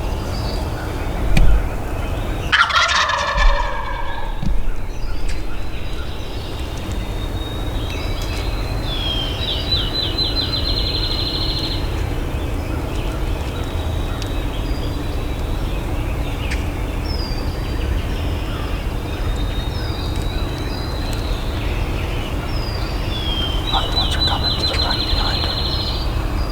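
A wild turkey gobbler gobbles once, loud, about three seconds in, just after a low thump. Songbirds trill and chirp in the background over a steady low rumble.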